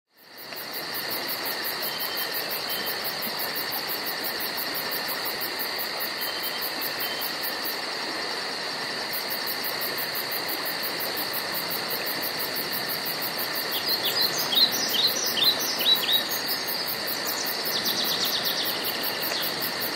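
Rainforest insect chorus: several steady high-pitched drones run throughout, one of them a fast, very high pulsing trill. About fourteen seconds in, a bird gives a run of about six sharp downward-sliding whistled notes, and near the end there is a brief rapid trill.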